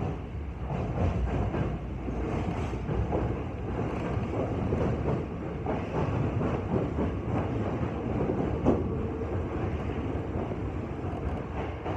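Subway train running through a tunnel, heard from inside the front cab: a steady rolling rumble with wheels clicking over rail joints and points as it nears its terminal platform.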